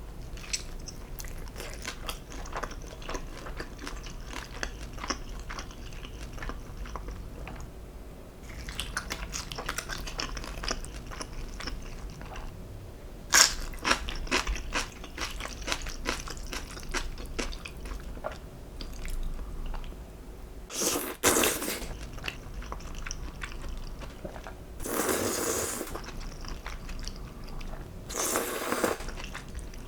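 Close-miked eating: biting into and chewing a large pan-fried dumpling with a crisp skin, a run of small crunches. There is a sharp bite about 13 seconds in, and a few louder, longer bursts of chewing in the second half.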